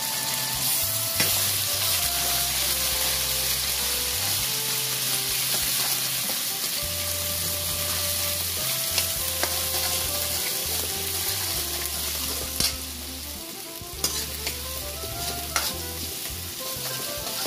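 Ground masala paste sizzling and frying in hot oil in a steel kadai as a steel ladle stirs it, with a steady sizzle and the ladle knocking the pan a few times.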